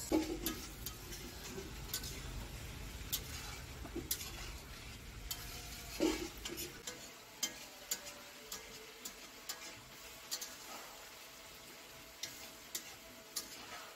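Desi chicken pieces sizzling in an aluminium karai while being stir-fried in spice paste with a little water, the bhuna stage of a curry. A spatula scrapes and knocks against the pan in irregular clicks throughout.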